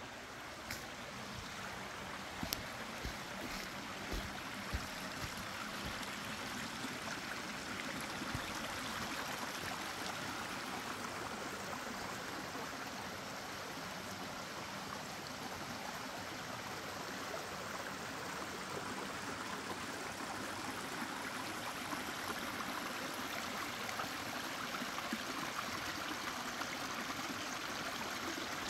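A creek rushing steadily, growing a little louder over the first several seconds and then holding level. A few sharp clicks sound in the first several seconds.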